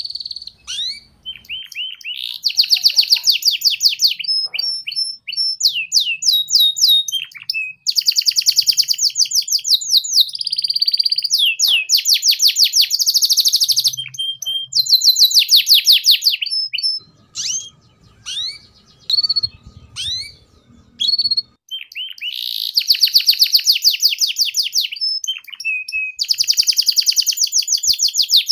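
Domestic canary singing: phrases of very fast rolling trills and chirps, each a second or two long, broken by short pauses, with a quieter lull about two-thirds of the way through.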